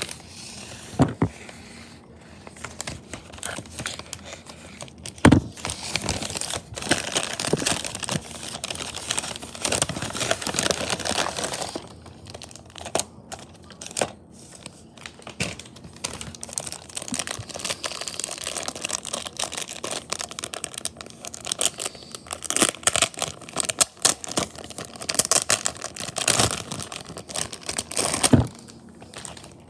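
Irregular crinkling and rustling of something being handled, full of small crackles and clicks. A few sharper knocks stand out, the loudest about five seconds in.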